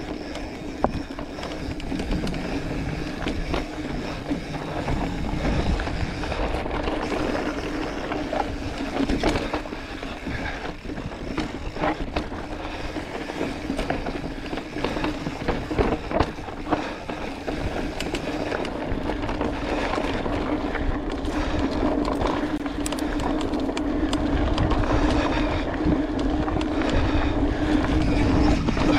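Mountain bike rolling along a dry dirt singletrack: tyres on dirt and loose rock under a steady hum, with sharp knocks and rattles as the bike hits bumps, growing a little louder toward the end.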